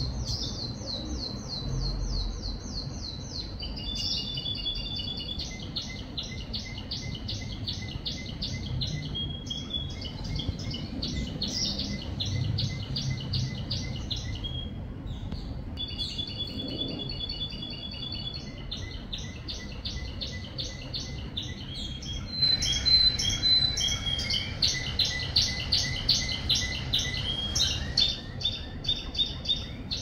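Domestic canary singing a long song of rapid trills, phrase after phrase of fast repeated notes with only brief pauses. About three-quarters of the way through the song becomes louder and denser.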